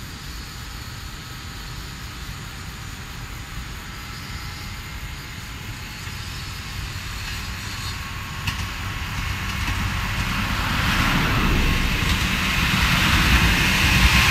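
JR West 103-series red electric train approaching along the track and drawing level, its running noise swelling steadily from faint to loud over the whole span. A single sharp click about eight seconds in.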